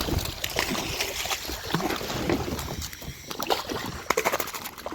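Water splashing and sloshing at the side of a kayak, with scattered knocks and clicks, as a hooked bass is brought in and landed.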